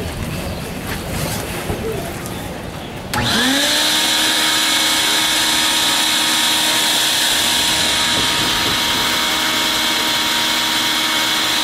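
Electric air blower switched on about three seconds in, its whine rising quickly to a steady pitch with a strong rushing hiss, as it blows air through a hose into a clear inflatable water-walking ball.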